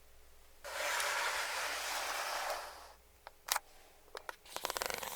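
Close-miked ASMR eating of KFC fried chicken: a steady two-second hiss-like rustle, then a few sharp clicks, and near the end a run of fine crackling crunches as the crispy fried coating is bitten and chewed.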